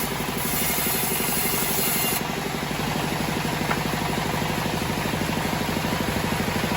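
Homemade band sawmill's engine running steadily with a fast, even pulse. A high hiss over it stops suddenly about two seconds in.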